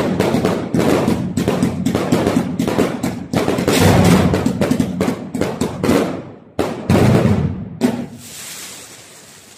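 Multi-shot fireworks cakes firing in rapid succession: a dense string of launch thumps and bursts, several a second. The shots stop about eight seconds in and a crackling hiss fades away.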